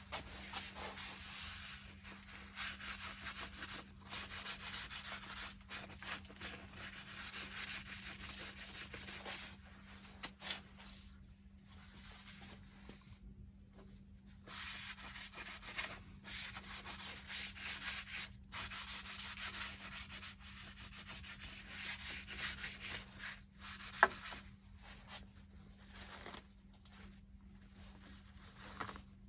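Paper towels rubbed and wiped across a metal mower-seat pan, in long spells of rough scrubbing broken by short pauses. One sharp click near the end.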